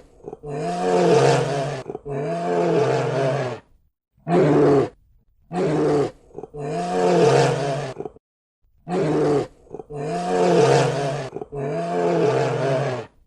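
A large animal's deep calls, about eight in a row, short and long in turn, each rising and falling in pitch, with dead-silent gaps between them where the recording has been cut.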